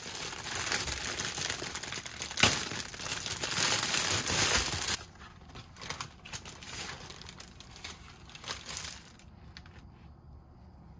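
Plastic bag and paper bread wrapping crinkling as a loaf is unwrapped. The crinkling is loudest for the first five seconds, then drops to softer, scattered rustles.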